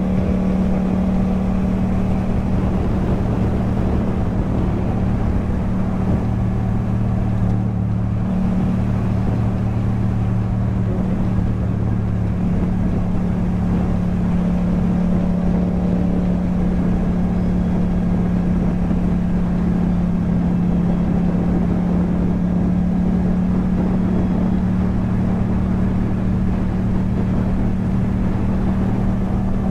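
Yamaha MT-07's 689 cc 270° parallel-twin engine through an Akrapovič exhaust, running at a steady note while the bike cruises along at an even pace.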